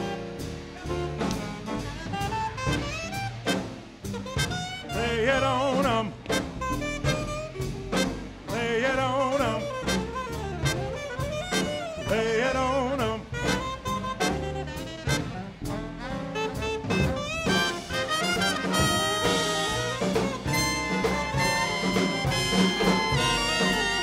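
Swing big band playing an instrumental chorus: a saxophone solos with bending, wavering lines over a steady swing beat from drums and bass. About three quarters of the way through, the trumpets and trombones come in with held chords.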